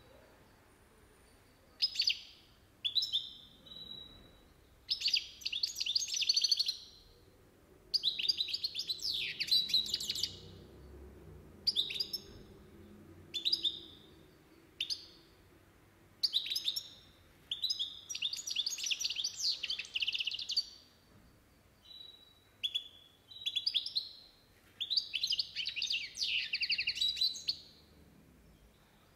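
Caged European goldfinch singing: phrases of fast, high twittering song lasting one to three seconds, separated by pauses and short single chirps.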